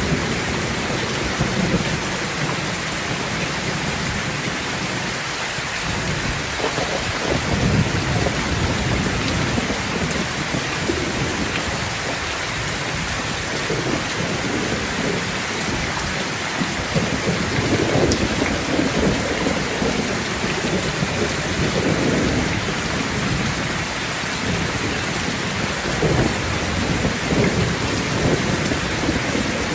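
Steady heavy rain hissing, with low rolling thunder that swells and fades several times.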